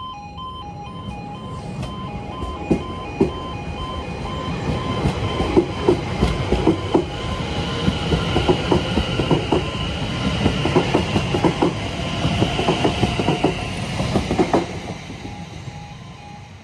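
A Greater Anglia Class 720 electric multiple unit pulls out of the platform and runs past. Its wheels clack repeatedly over rail joints as it picks up speed, and the sound fades away near the end. A repeating beep tone sounds during the first few seconds.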